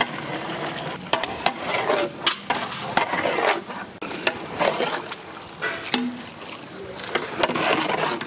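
A long wooden paddle stirring diced potatoes through a thick vegetable masala in a large metal cooking pot, with irregular wooden clacks and scrapes against the pot over a wet churning.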